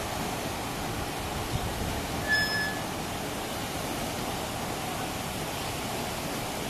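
Steady rushing noise of a wave pool's churning, whitecapped water, with one short high tone a little over two seconds in.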